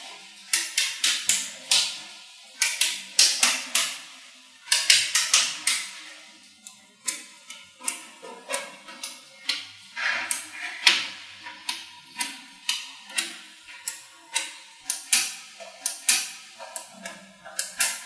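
Small magnetic balls clicking and snapping together as strips and blocks of them are pressed into place: a quick, irregular run of sharp clicks, several a second, each with a short ringing tail.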